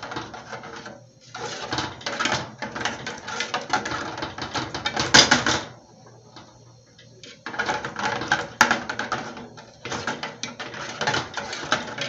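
Metal spoon scraping and clicking rapidly against an aluminium pudding mould, stirring sugar melting into caramel on the stove. It comes in stretches, with a break of about a second and a half a little past the middle, and the loudest clack falls about five seconds in.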